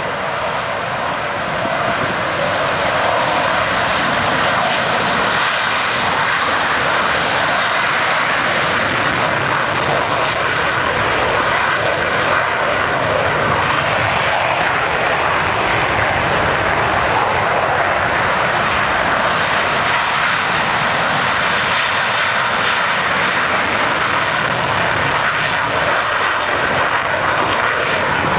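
Lockheed Martin F-22A Raptor's twin Pratt & Whitney F119 turbofan engines running at takeoff power through the takeoff roll and liftoff: loud, steady jet engine noise that grows louder about two seconds in and then holds.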